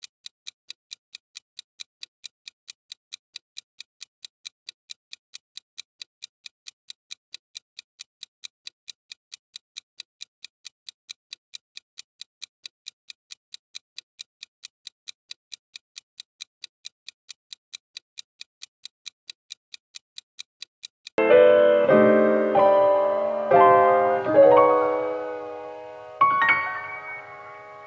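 Countdown timer ticking like a clock, about two light high ticks a second. About 21 seconds in it gives way to a short, louder electric-piano tune.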